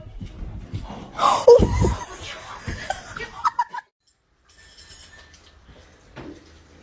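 A person laughing, loudest about a second and a half in, breaking off just before four seconds.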